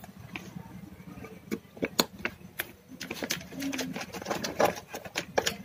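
Plastic wiring-harness connectors and wires being handled inside a dishwasher, giving irregular sharp clicks and rattles that come faster and thicker after the first second or two.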